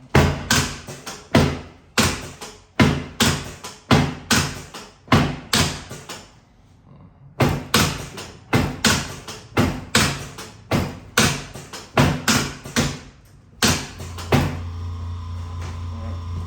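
A rapid series of thumps, about two a second, from percussive work on the patient during a chiropractic adjustment, in two runs with a short pause between. Near the end a steady electric motor hum starts.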